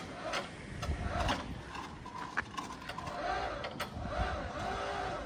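Electric hoist of a homemade ladder crane running steadily as it winches an air-conditioning condenser up the ladder, with a wavering motor tone and scattered light clicks.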